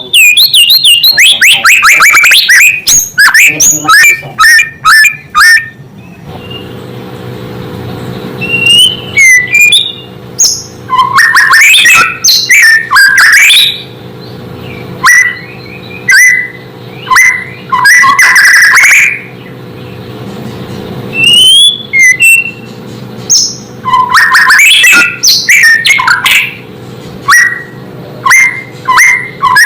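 White-rumped shama (murai batu) singing loud whistled phrases of quick rising and falling notes, in bursts separated by short pauses, with a fast run of notes at the start. A faint steady hum lies underneath from about six seconds in.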